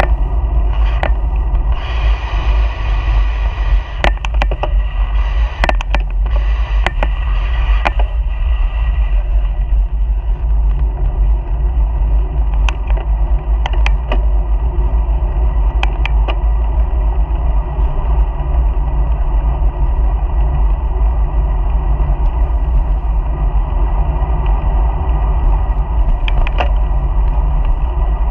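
Steady low rumble of wind and road noise on a bicycle-mounted GoPro as the bike rolls along, with scattered sharp clicks and knocks, most of them in the first eight seconds.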